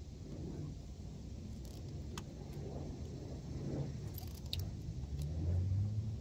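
Folding arms of a G200 hexacopter spraying drone being swung out and latched into place by hand, with a few sharp clicks, over a steady low rumble that swells near the end.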